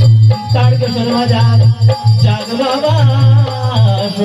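Folk-style music: a voice singing a wavering melody over a heavy, steady beat that pulses about twice a second.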